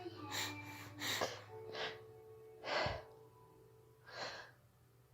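A person taking quick, sharp breaths, about five in a row with pauses between them, over faint background music.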